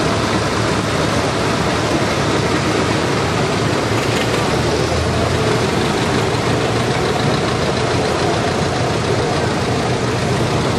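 Old tractor engines running at slow parade pace: one passes close by and another approaches.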